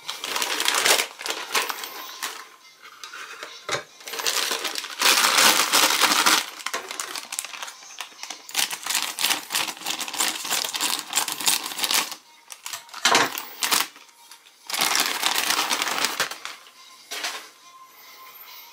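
Clear plastic packaging crinkling and crackling as a bagged cardboard mask toy is handled and opened, in several loud bursts with short pauses between.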